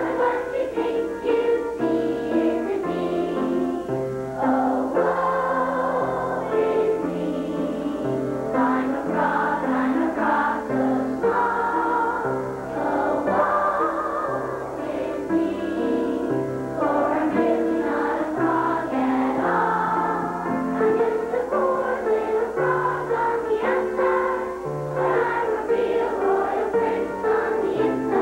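Children's chorus singing a song with instrumental accompaniment, a bass line stepping from note to note beneath the voices.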